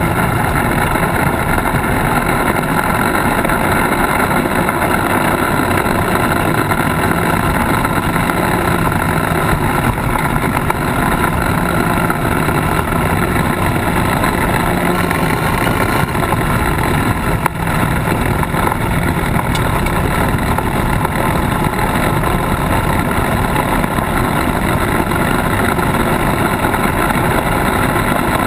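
Polaris RZR side-by-side driving over a gravel and dirt track, picked up close to the wheels. Its engine, tyres crunching gravel and wind make a steady, loud rushing noise, and there is a single brief knock about two-thirds of the way through.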